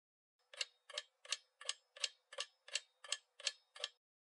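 Clock-tick sound effect for a quiz countdown timer: ten sharp, even ticks, about three a second, starting about half a second in, counting down the answer time.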